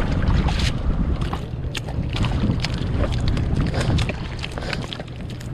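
Wind buffeting the microphone out on the water, a rough uneven rumble, with scattered short sharp clicks and knocks.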